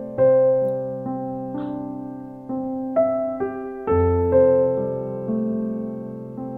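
Background piano music: a slow, gentle melody of struck notes that ring and fade over held lower notes.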